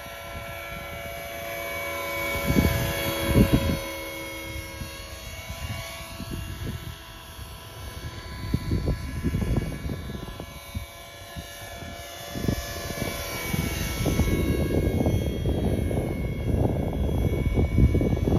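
Electric RC helicopter (Align T-Rex 450 mechanics, brushless motor on a 3S battery) in flight: a steady whine of the motor and gears with the rotor hum, its pitch gliding up and down as it flies about. Low gusty rumbling, like wind on the microphone, grows heavier in the last few seconds.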